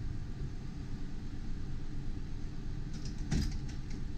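Motorhome's gasoline engine, a Ford 6.8-litre V10, idling steadily just after being started, heard from the driver's seat. There is one short clunk a little over three seconds in.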